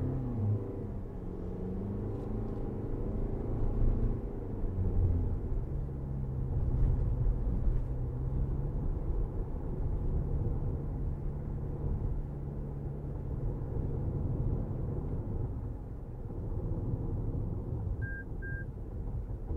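A 2023 Toyota RAV4 driving, with a steady engine and road rumble. The engine's pitch rises and falls over the first few seconds, then holds steady. Two short high beeps come near the end.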